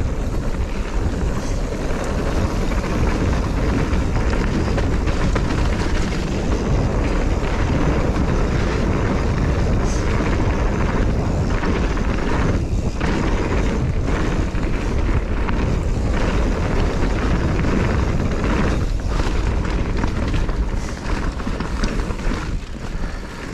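Mountain bike being ridden fast down a dirt trail: wind buffeting the microphone over the steady rolling of the tyres, with frequent small clatters and knocks from the bike over bumps.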